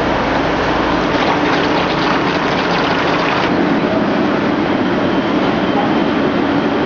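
Loud, steady din of construction machinery in a tunnel bore under excavation: engine and mechanical noise, with a shift in its character about halfway through.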